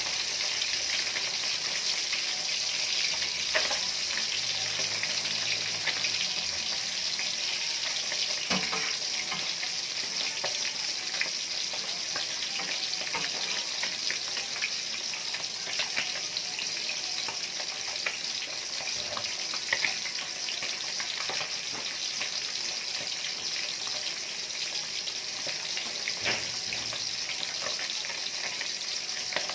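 Fish frying in shallow oil in an aluminium wok: a steady sizzle with scattered crackles and pops.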